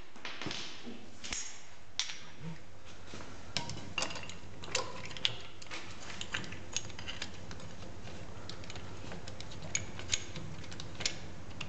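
Scattered light metal clinks and clicks as the parts of a brake piston compression tool (threaded spindle and adapter plate) are handled and fitted against a rear brake caliper, over a steady low background hum.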